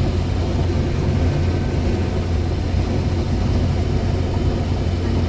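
Combine harvester running steadily while harvesting corn: a constant low engine and machinery drone.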